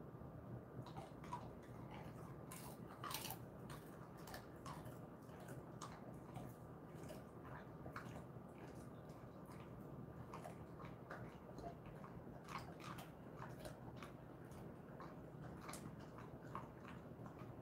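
Jindo-mix dog chewing a hand-fed treat: faint, irregular crunching and clicking bites.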